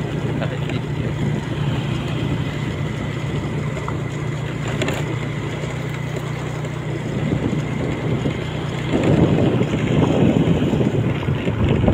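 A steady low engine hum, with wind buffeting the microphone and growing louder from about nine seconds in.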